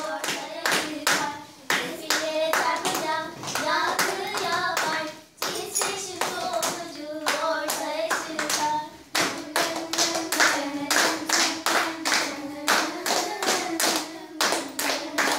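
A group of young girls singing a song together in unison while clapping a steady beat.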